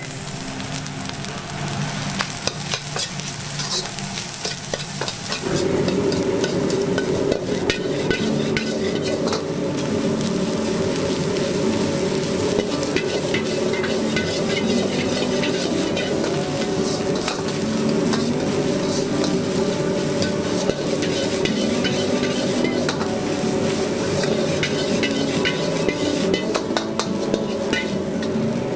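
Egg fried rice with shrimp and leek sizzling in a wok over a gas flame, stirred and scraped by a metal ladle with many small scrapes and clinks. The frying gets louder about five seconds in and then stays steady.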